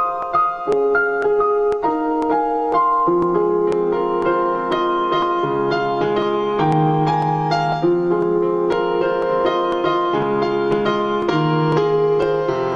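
Calm instrumental background music: a keyboard plays sustained chords under a slow melody, the notes changing about once a second.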